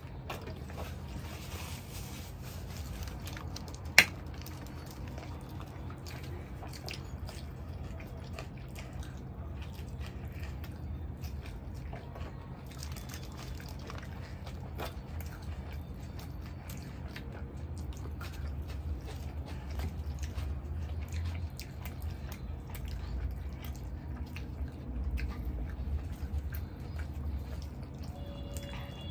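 Close-up eating sounds of two people eating masala chaap curry and naan by hand: chewing, wet mouth clicks, naan being torn and fingers squishing in the thick gravy, over a low steady hum. A single sharp click about four seconds in.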